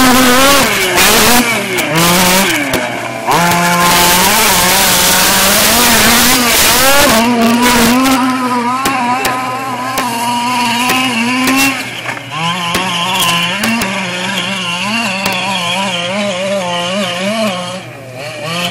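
Small two-stroke gas engine of a 1/5-scale RC trophy truck, revved up and down over and over as the throttle is worked. It is loud at first under a heavy rushing noise, then fainter and thinner in the second half as the truck runs farther off.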